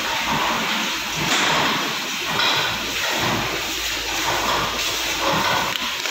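Steady industrial hiss with a low rumble underneath, the background noise of a factory hall's machinery and air handling.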